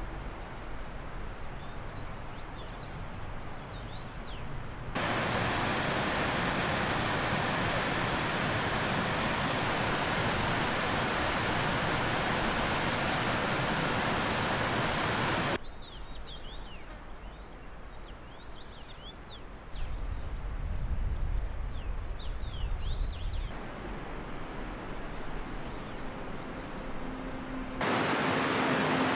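Mountain outdoor ambience: the steady rush of a shallow rocky river, loud in some stretches and fainter in others. Birds chirp in the quieter stretches, and the level jumps abruptly several times.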